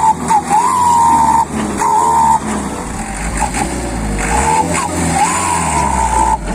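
A dump truck's diesel engine running as the truck moves off through loose dirt, a steady low rumble, with high squeals several times that rise and then hold briefly.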